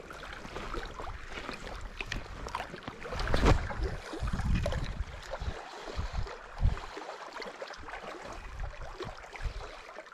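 Wind gusting on the microphone in uneven rumbling waves, loudest about three and a half seconds in, with scattered small clicks and rustles from handling a spinning rod and reel.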